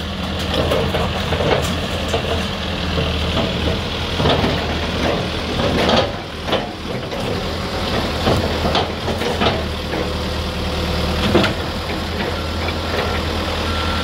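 A 2002 Caterpillar 430D backhoe loader's diesel engine running steadily while its front loader bucket dumps debris into a steel roll-off dumpster, with scattered knocks and clatter of falling debris, loudest around the middle and again about four-fifths through. Short evenly spaced beeps start near the end.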